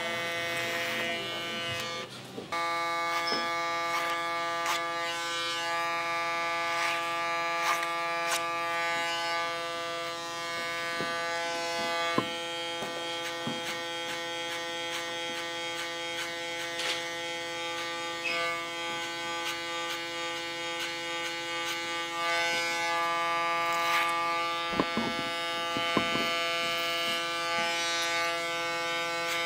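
Electric hair clippers buzzing steadily as they cut the hair at the nape of the neck short, with scattered light clicks. The buzz dips briefly about two seconds in, then carries on.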